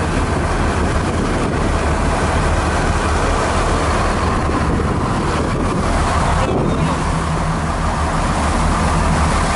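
Boat engine running steadily under way, a constant low hum under wind and water noise; a slightly higher steady tone joins the hum about seven seconds in.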